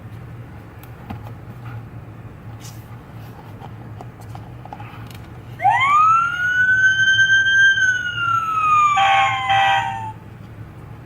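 A single siren wail that sweeps up sharply about halfway in, holds, then slowly winds down, with two short beeps near the end.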